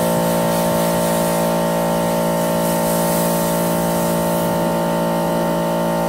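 Greenworks Pro 3000 PSI electric pressure washer running under load with a 40° nozzle at about 1900 PSI: a steady, even whine of its brushless motor and pump over the hiss of the water spray.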